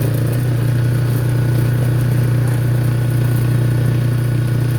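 Vehicle engine running at a steady pitch while driving, heard from on board, with a light rattle over the low hum.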